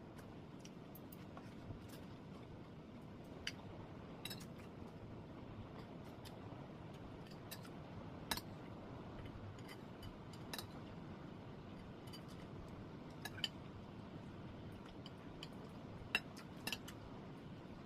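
Eating utensils clinking and tapping against dishes, about seven short sharp clinks spread irregularly over a faint steady background hiss.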